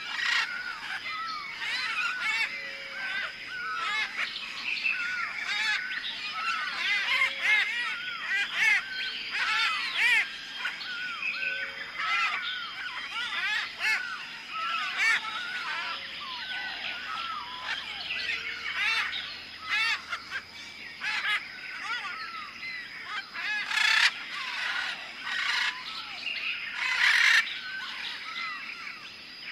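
Jungle ambience: a dense chorus of many birds chirping and calling over one another, with a steady high tone held underneath and a short low note recurring every few seconds. Two louder, harsher calls stand out near the end.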